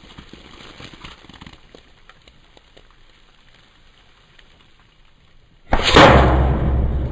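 A single shot from a Western Rattler .357 big-bore PCP air rifle near the end: a sudden loud report that dies away over more than a second.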